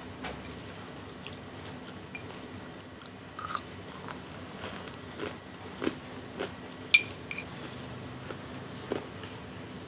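Close-up crunching and chewing of slate pencil powder mixed with banslochan, heard as scattered short crunches. About seven seconds in comes one sharp ringing clink, a spoon against the glass bowl.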